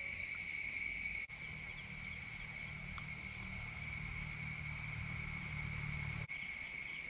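Steady insect chorus: several shrill high-pitched tones held evenly, over a faint low rumble.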